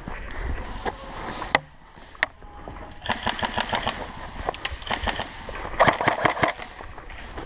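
Airsoft guns firing during a close-range firefight: two sharp single cracks, then a run of quick clicking shots and clatter that grows loudest about six seconds in.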